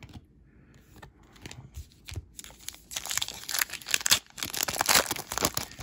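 Panini Mosaic basketball trading-card pack torn open by hand, its plastic wrapper crinkling. It starts faintly about two seconds in and grows into a dense, rapid crackle.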